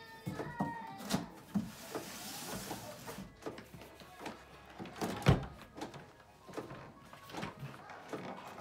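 Hard plastic knocking and clicking as a Fluval FX4 canister filter, its corrugated hoses coiled around it, is gripped and lifted on a wooden table, with a short rustling hiss about two seconds in. The loudest knock comes about five seconds in.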